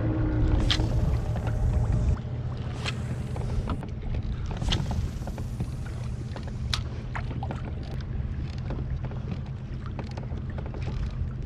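Small waves slapping and lapping against a plastic fishing kayak's hull, with a low rumble of wind on the microphone and scattered sharp clicks and knocks of gear against the hull. The rumble is heavier for the first two seconds.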